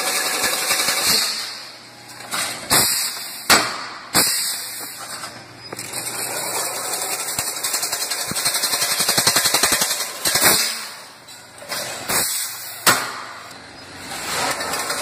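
Automatic chain-link wire mesh weaving machine running: a fast, even metallic clatter that swells and fades, with a few sharp knocks standing out.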